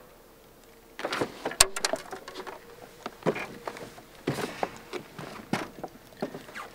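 Irregular clicks, knocks and rustles of an angler moving about in a small fishing boat and handling a freshly caught bluegill, starting about a second in, with one sharp click soon after.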